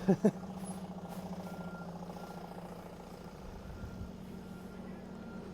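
A motor vehicle's engine running steadily, an even low hum.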